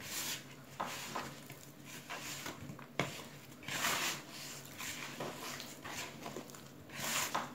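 Hands kneading a cold-butter sablé dough of butter, icing sugar and ground almonds in a plastic bowl: soft squishing and rubbing against the plastic in uneven strokes, with a sharp light knock about three seconds in. The dough is still crumbly because the butter is cold.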